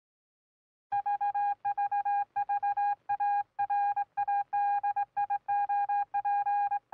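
Morse-code telegraph beeps: a single steady beep tone keyed on and off in a quick, irregular run of short and long beeps, starting about a second in.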